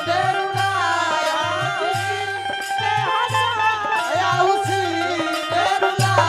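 Bhojpuri folk stage music without words: a wavering melody line over a steady low drum beat of about two strokes a second.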